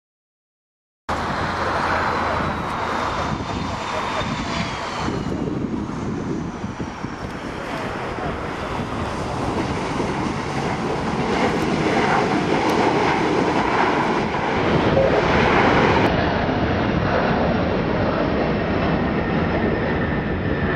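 MD-80 jetliner with its Pratt & Whitney JT8D engines running: a loud, steady rushing roar that cuts in suddenly about a second in, with an engine whine falling in pitch over the following few seconds.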